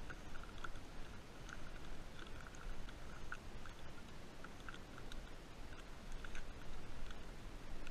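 Kayak longline being hauled in by hand over the side of a plastic kayak: irregular small clicks and scrapes over a faint steady hiss.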